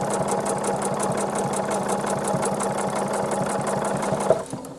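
Sewing machine running at speed, stitching through a quilt under a leather roller foot with a fast, even needle rhythm. It stops with a short click a little over four seconds in.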